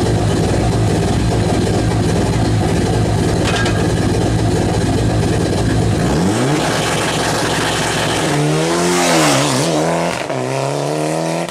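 Rally car engine running hard at high revs, its note steady for several seconds before rising about six seconds in. Near the end the pitch dips and climbs again through a gear change, with a brief hiss of tyre noise as the car goes by.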